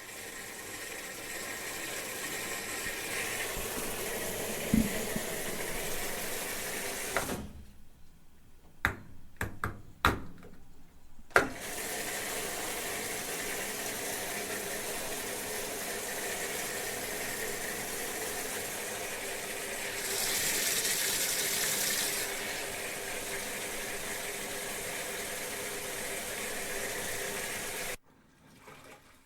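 Water running steadily, like a tap or sink filling. About a third of the way in it stops for a few seconds, leaving a few sharp knocks and clatters, then runs again and cuts off shortly before the end.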